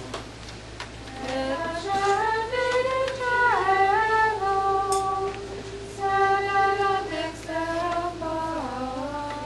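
Voices singing a slow hymn in unison, a single line of long held notes moving up and down.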